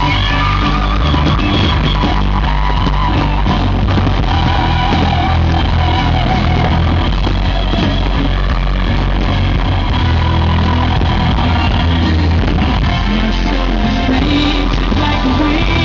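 Loud rock music with guitar, playing steadily throughout.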